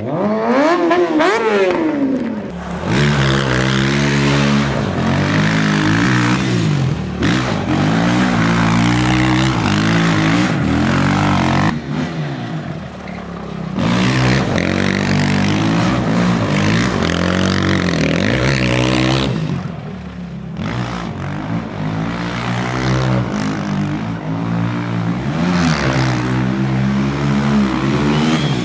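Stunt machines' engines revving hard over and over, the pitch climbing and dropping in quick swells with a few short lulls between. First a sport motorcycle, then a quad bike.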